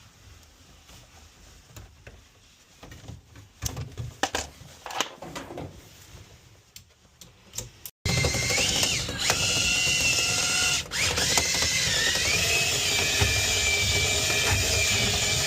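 Scattered clicks and scrapes of dryer vent cleaning rods being handled in the duct. Just past halfway, a power drill starts abruptly and runs steadily, spinning the rods, its whine shifting in pitch now and then.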